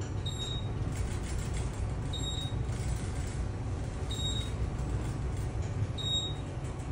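Otis elevator car travelling upward: a steady low rumble of the ride, with a short high beep about every two seconds, in step with the floor indicator as each floor is passed.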